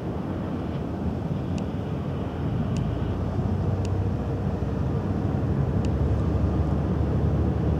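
Low, steady engine rumble of a large motor yacht passing across the water, growing slightly louder toward the end. A few faint, short high ticks sound over it.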